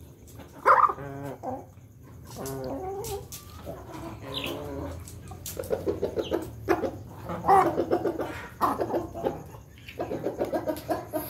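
Ayam ketawa (laughing chicken) rooster and other chickens calling in several runs of rapid, stuttering notes, each run about a second long, with a few sharp knocks between them.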